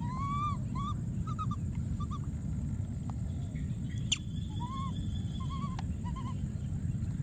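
Short squeaky animal calls, each rising and falling in pitch, in two quick runs of four or five: one at the start and one from just before five seconds in. A single sharp click just after four seconds, over a steady low rumble.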